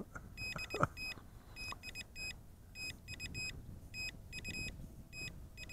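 Faint, rapid high-pitched electronic beeps in short clusters from the SJRC S20W drone's controller or app: the warning that the drone's camera is recording. A faint low rumble runs underneath.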